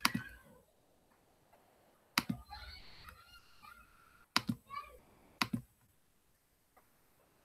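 Five sharp clicks at a computer, spaced a second or two apart with the last two close together, some followed by faint chirping tones.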